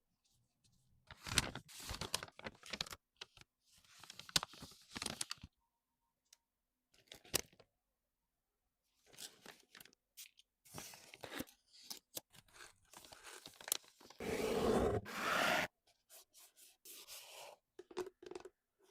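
Packaging being handled: irregular bursts of tearing and crinkling of paper or plastic wrapping, with one longer, louder tear about fourteen seconds in.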